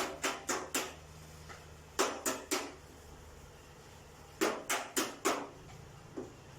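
Hammer blows in quick groups of three or four, about three or four strikes a second, with pauses between the groups.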